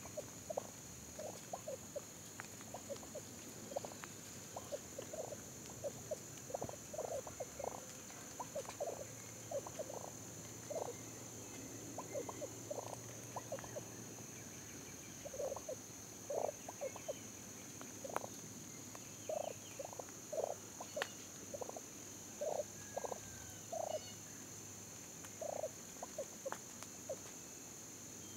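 Wild turkeys calling: short notes repeated in irregular clusters throughout. A steady high-pitched insect drone runs underneath.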